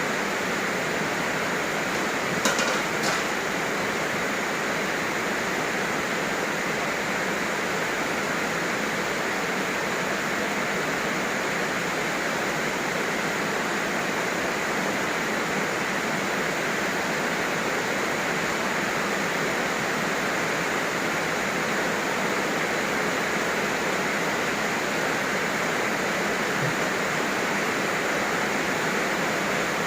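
Steady, heavy rain falling, a continuous even hiss. Two short knocks sound about two and a half seconds in.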